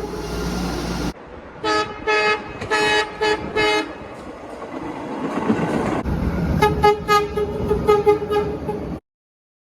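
MBTA Blue Line 0700-series subway train's horn sounded in a string of short toots, about six in the first half, then a quicker run of short blasts near the end, with the train's rumble in between.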